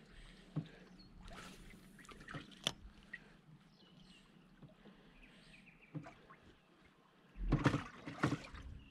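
Scattered light knocks and clicks over a faint low hum, with a louder cluster of knocks and rustling about seven and a half seconds in.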